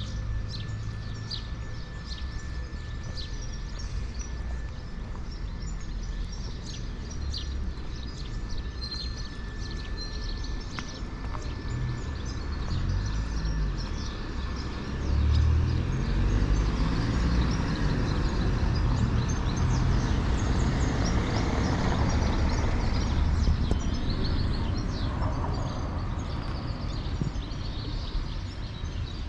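Outdoor street ambience with small birds chirping throughout. A vehicle passes, its engine rising and falling in pitch and making the sound louder from about halfway until near the end.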